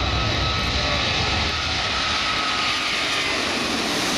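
Airbus A380-841's four Rolls-Royce Trent 900 turbofans at takeoff power as the airliner climbs away, a loud steady jet roar with a faint whine. The deep rumble eases about a second and a half in.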